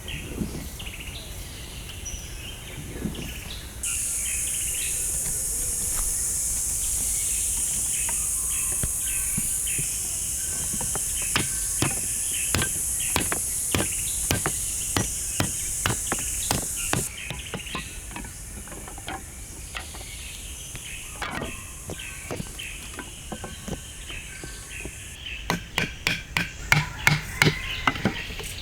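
Runs of sharp, rapid knocks from hand-tool strikes, coming in two busy spells in the middle and near the end. Under them is a high insect buzz that starts and stops abruptly, with scattered bird chirps.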